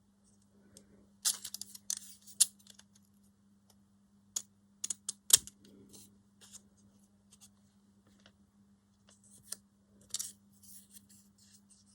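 Decorative stamp-edge craft scissors snipping through paper in short, irregular cuts, over a faint steady low hum.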